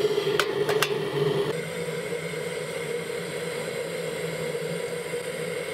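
Handheld gas torch burning with a steady hiss as its flame is held into the firebox of a homemade stove to light it. Two sharp clicks come within the first second, and the hiss drops slightly about a second and a half in.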